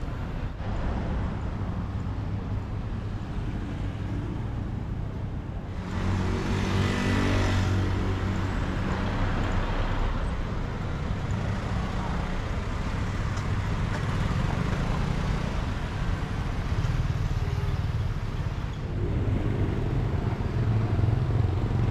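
Road traffic: vehicle engines running with a steady low hum, growing louder about six seconds in and again near the end.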